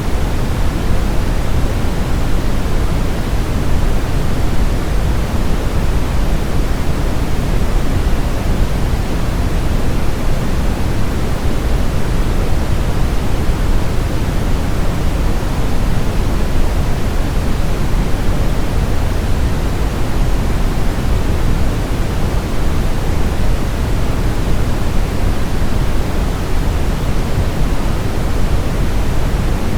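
Steady, unchanging pink noise: an even rushing hiss, fullest in the deep end and thinning toward the top, with no tones or breaks.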